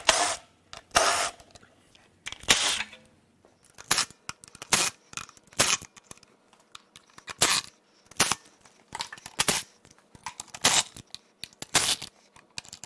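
A ratchet wrench working bolts on the intake manifold of an engine: about a dozen short, sharp bursts of clicking at uneven intervals.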